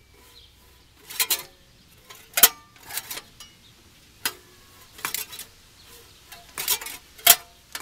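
Irregular metallic clanks and clinks, some ringing briefly, as a ratchet slowly turns a Ford 460 big-block V8 over by hand with its spark plugs out. The ratchet knocks against the power steering pulley and the flex fan's blades clink as the engine turns.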